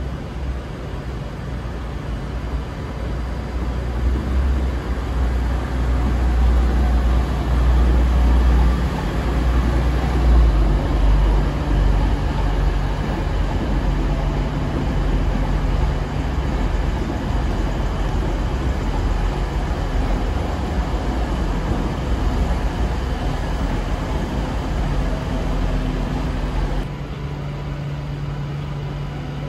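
Class 390 Pendolino electric train pulling into a platform and slowing to a stop. A deep rumble of wheels and running gear is loudest about ten seconds in, then gives way to a steady low hum that quietens near the end.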